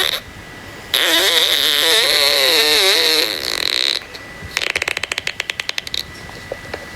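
A raspy squeal with a wavering pitch, lasting about three seconds, followed by a zipper being pulled: a quick run of clicks about a second and a half long.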